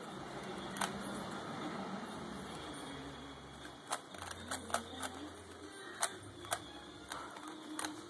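Rubik's cube being turned by hand: irregular sharp plastic clicks as the layers snap round, one early and then a quick run of them in the second half.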